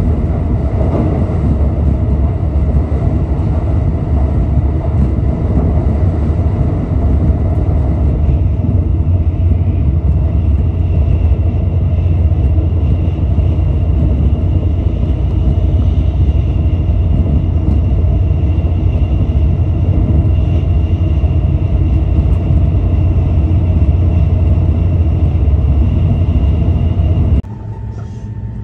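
Steady, loud low rumble of a moving vehicle, with a faint high whine above it, dropping suddenly to a quieter rumble near the end.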